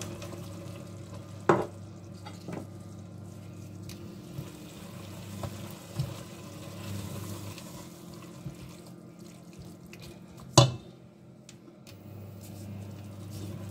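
Chicken, prawns and vegetables sizzling gently in a stainless steel pot while a plastic spoon stirs them, over a steady low hum. A few sharp knocks of the spoon against the pot, the loudest about ten seconds in.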